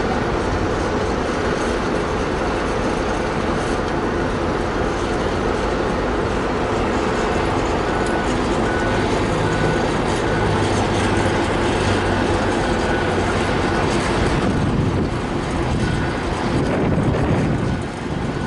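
Diesel heavy equipment running steadily, with a backup alarm beeping in short high beeps from about eight seconds in until near the end.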